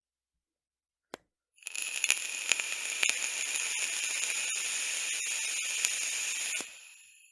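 Vape firing: a short click about a second in, then about five seconds of steady crackling hiss as the coil heats the e-liquid during a draw, fading out near the end.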